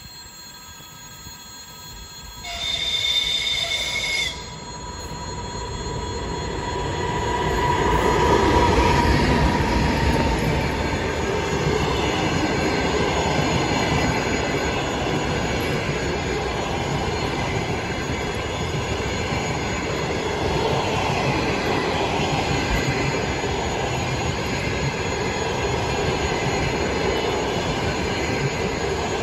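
EP2K electric locomotive sounds one horn blast of about two seconds, starting a couple of seconds in, then hauls its passenger train past. The noise builds to its loudest around eight to ten seconds in as the locomotive passes, then settles into a steady rush of coach wheels running on the rails.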